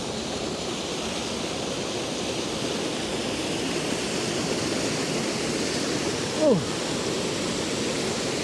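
Fast-flowing creek rushing over rocks at a waterfall, swollen by heavy rain: a steady rush of water that grows slowly louder. About six and a half seconds in, one brief sound slides sharply down in pitch over it.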